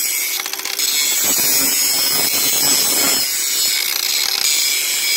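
Hitachi angle grinder grinding the inside edge of a steel delimbing knife on a Logmax processor head to sharpen it: a steady high grinding whine, dipping briefly about half a second in.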